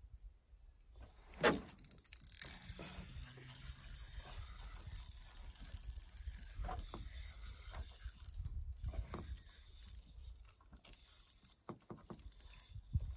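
A fishing reel being cranked, its gears giving a fast ratcheting clicking, with a sharp knock about a second and a half in.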